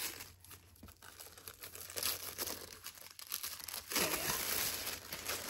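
Paper packaging of an advent calendar gift being opened by hand: irregular crinkling and tearing, loudest about two seconds in and again from about four seconds on.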